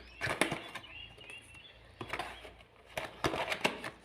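Chip packaging being handled: crackles and clicks of the wrapper and cardboard box, in short bursts.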